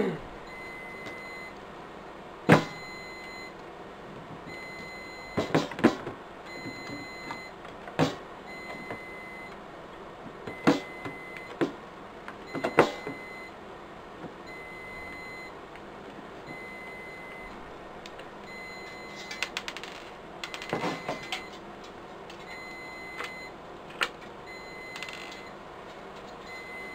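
Sharp knocks and clunks of sealed lead-acid batteries and their wiring being handled and set into a UPS battery pack case, loudest about two and a half seconds in. Under them an electronic beep repeats about once a second.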